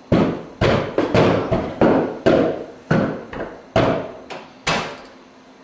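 A rapid series of about nine loud knocks or bangs, roughly two a second, each dying away quickly, stopping about three quarters of the way through.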